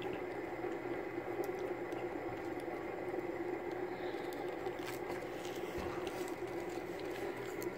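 Metal fidget spinner spinning flat on a stone countertop, its bearing giving a steady, even whir with a light hiss.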